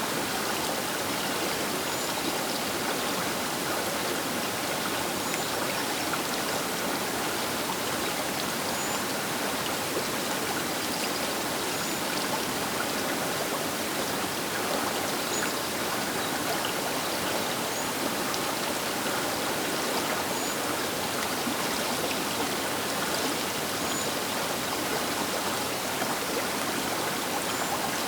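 Baker River water rushing steadily past the bank: a constant, even rush of flowing water with no breaks.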